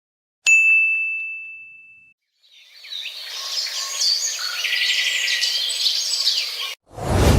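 A single bright ding that rings out and fades over about a second and a half, then, after a short gap, many birds chirping and trilling together for about four seconds. It cuts off abruptly, and a loud rushing boom starts near the end.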